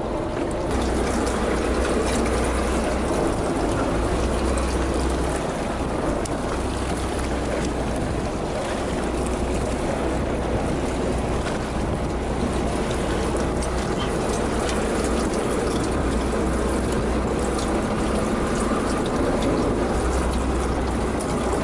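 Fishing boat's engine running steadily, with water splashing and rushing around the hull.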